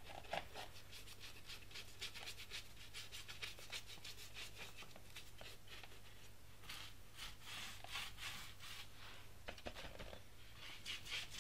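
Faint, quick repeated scrubbing strokes of a brush on the rusty metal wheel rim of a Riga-11 moped, working off surface rust.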